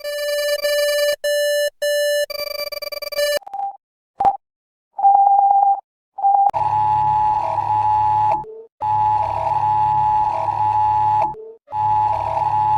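Electronic emergency alert tones: three steady buzzy beeps, then a warbling tone and a couple of short single beeps. From about six and a half seconds in, an alarm cycle of about two and a half seconds repeats with brief gaps.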